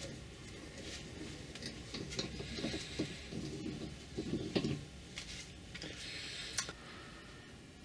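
Hand threading die in a die stock being turned to cut a thread onto a metal rod held in a bench vise: irregular scraping and light clicking of the die biting the metal, with one sharp click near the end.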